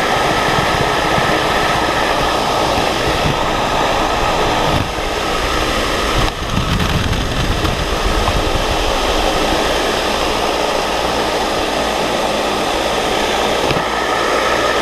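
Outdoor vertical wind tunnel's large fan blowing a steady rush of air up through the net, with a faint steady whine over it and wind buffeting the camera microphone.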